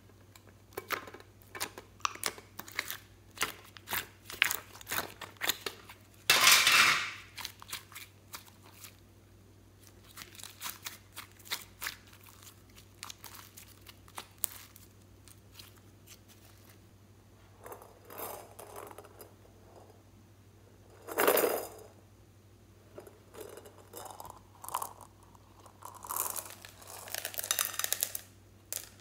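Glossy slime being pulled from a plastic palette tray and squeezed and kneaded by hand: a run of small sticky clicks and pops, with two louder, longer bursts about six and twenty-one seconds in.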